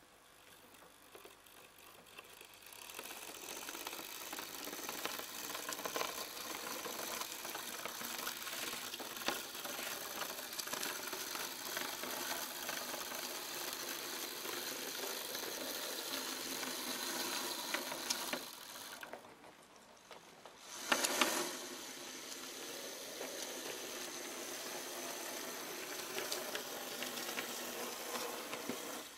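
Magic Train model diesel locomotive running along its track: the steady whirr of its small electric motor and gear drive. About two-thirds of the way through it stops for about two seconds, then starts again with a brief louder surge.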